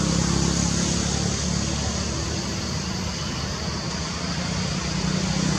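Steady background noise: a constant low hum under an even hiss, with no distinct events.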